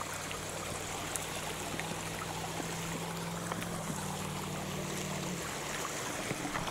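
Creek water running steadily over a shallow rocky riffle and a concrete ledge. A faint low hum underneath stops about five seconds in.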